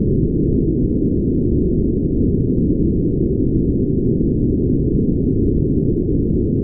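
Steady brown noise: a deep, even hiss with no treble, unchanging throughout.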